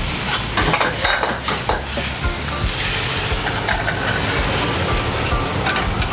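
Rice cakes, pickled mustard greens and shredded pork sizzling in a wok over a gas burner, with a metal ladle clacking and scraping against the wok. The clacks come thickest in the first two seconds.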